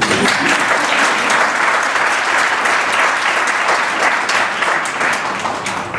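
Audience applauding, many hands clapping steadily and easing off near the end.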